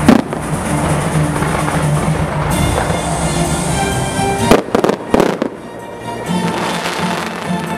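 Fireworks shells bursting over music: a sharp bang at the start, then a quick run of loud bangs about halfway through.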